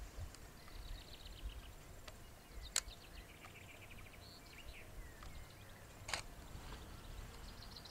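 Faint bird calls: short chirps and quick runs of notes, over a quiet background. Two short sharp clicks, about three and six seconds in.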